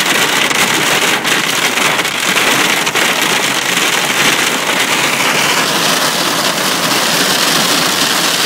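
Hail pelting a car's roof and windscreen, heard from inside the car: a dense, continuous clatter with a few sharper hits standing out.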